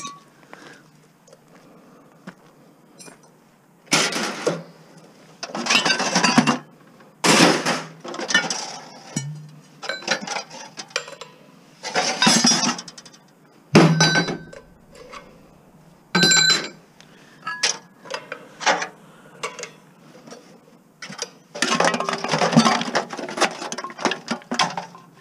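Pieces of scrap metal being thrown into a scrap bin, clanking and clattering in about a dozen irregular crashes, some with a short metallic ring. The longest clatter comes near the end.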